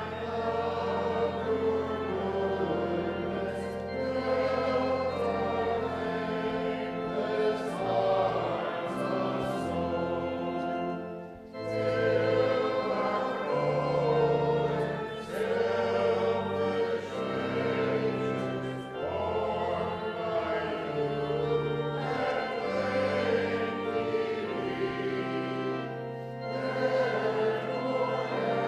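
Voices singing a hymn together over a keyboard accompaniment that holds steady low notes, changing chord every second or two, with a short break between phrases about eleven seconds in.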